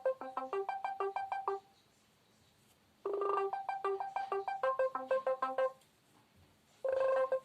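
KAZAM Trooper 2 phone ringtone: a short melody of quick notes, about four or five a second, repeating, with a pause of about a second between plays.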